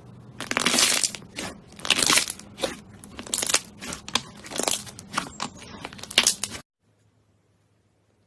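Hands squeezing and pressing slime, a crackly squish roughly every second, cutting off suddenly near the end.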